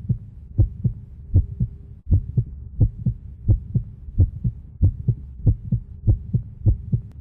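Heartbeat sound effect: paired lub-dub thumps repeating steadily at about 85 beats a minute over a faint low hum.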